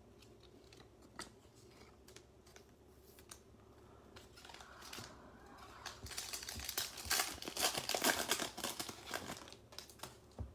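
Foil wrapper of a football trading card pack crinkling and tearing as it is ripped open by hand. A few faint clicks come first, then a dense crackling burst about six seconds in that lasts some three seconds.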